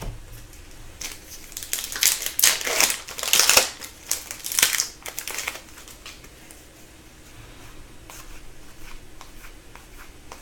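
Upper Deck hockey cards and their foil-pack wrapper being handled, crinkling and rustling in a run of bursts over a few seconds, then only faint handling sounds.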